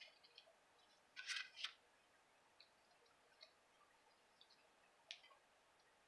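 Faint handling of card stock: patterned paper rustling and sliding as it is laid onto a card base and pressed flat, with a short rustle about a second in and a light tick near the end.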